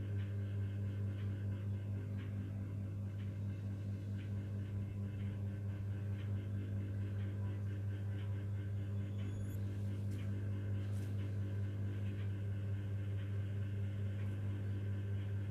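A steady low hum, even in level throughout, with faint scattered ticks above it.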